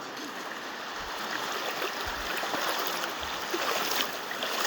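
Shallow Virgin River water rushing and splashing around legs wading through it, a steady rush with a few soft low thumps.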